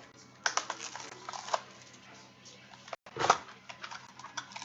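Trading-card packaging being handled and opened on a table: a series of light clicks and knocks, the loudest about three seconds in.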